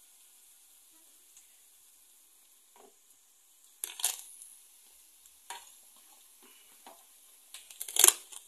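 Hot oil sizzling faintly in a frying pan as empanadas fry. A few short clicks and scrapes are heard, with a louder one about four seconds in and the loudest knock near the end.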